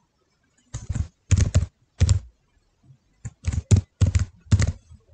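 Typing on a computer keyboard: about a dozen quick, uneven keystrokes, with a pause of about a second in the middle.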